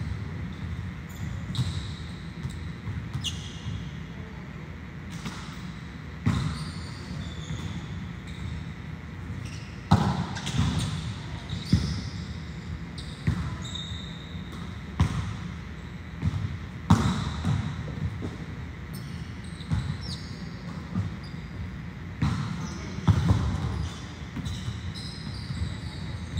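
Volleyballs being struck in serve-receive drills: a series of sharp, irregular slaps of hand and forearm on the ball, a second or two apart, the loudest from about a third of the way in. Short high squeaks come between the hits.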